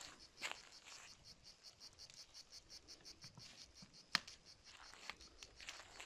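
Insects chirping in a fast, even, high-pitched pulse. A few sharp clicks or snaps stand out, the loudest about four seconds in.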